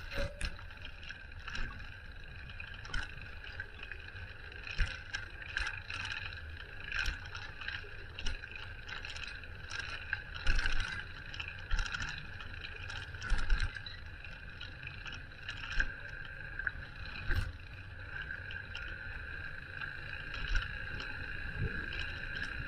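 Bicycle ride sound from a bike-mounted camera: wind rumbling on the microphone over a steady hiss, with frequent small clicks and rattling knocks as the bike goes over bumps.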